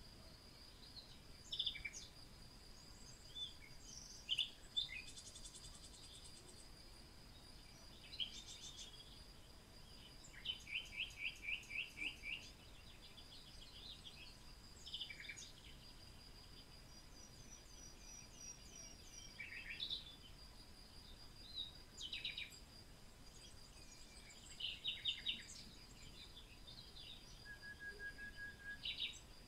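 Faint woodland ambience: several songbirds chirping and calling in short bursts and quick trilled runs, over a steady high insect buzz. A short, level whistled note comes near the end.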